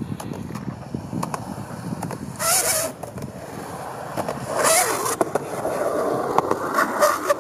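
Skateboard wheels rolling on a concrete path with scattered sharp clicks. There are two short, louder bursts of harsh noise about two and a half and four and a half seconds in.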